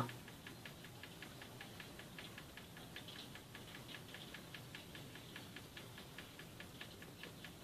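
Faint, rapid mechanical ticking, six to seven even ticks a second, running steadily.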